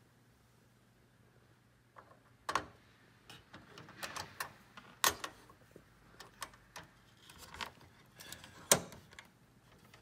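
Hands installing a processor and its metal heatsink on a desktop PC motherboard: scattered light clicks and taps, starting about two seconds in, with the sharpest click near the end.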